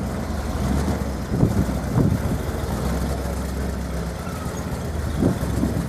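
Off-road vehicle engine running slowly at low revs, a steady low hum, with a few short thumps about one and a half, two and five seconds in.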